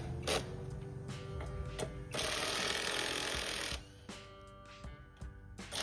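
Background music with a few sharp clicks, then a loud burst of mechanical ratcheting noise lasting about a second and a half, a third of the way in.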